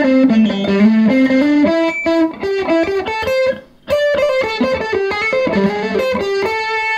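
Electric guitar played through a Roland Cube 60 amplifier's lead channel on its Brit Combo model with the gain up, giving a distorted, overdriven tone. A single-note lead phrase with a short pause about three and a half seconds in, then more notes ending on a held note.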